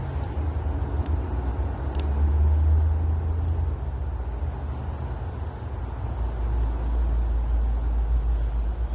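High-mileage (340,000 km) Audi A6 C5 engine running at idle: a steady low hum that shifts down in pitch a couple of times, with a single sharp click about two seconds in.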